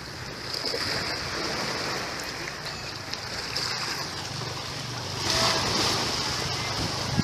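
Small sea waves washing against a rocky shoreline: a steady rushing hiss that swells a little about five seconds in.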